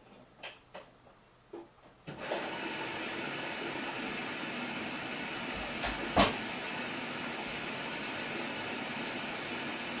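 Samsung Eco Bubble front-loading washing machine during its colour wash cycle: after a few soft knocks, water starts rushing into the drum about two seconds in with a steady hiss. A single sharp knock sounds about six seconds in.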